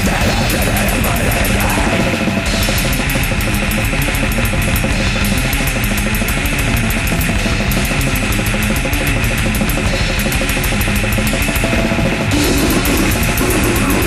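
Goregrind: heavily distorted guitars over very fast blast-beat drumming, dense and loud throughout.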